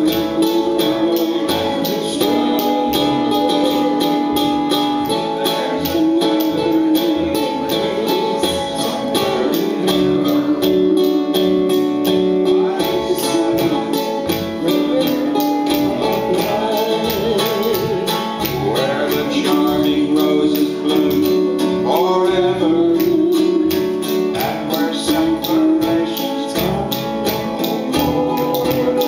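Small string band playing country gospel: a 1931 Martin plectrum guitar strung and tuned like a baritone ukulele, picked with a flatpick, over a washtub bass, with spoons clicking a steady rhythm and voices singing.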